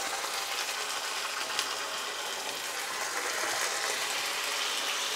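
Tomato paste and spiced onion masala sizzling steadily in hot oil in a pan, with a fine crackle. It gets louder over the last couple of seconds as a little water is poured in.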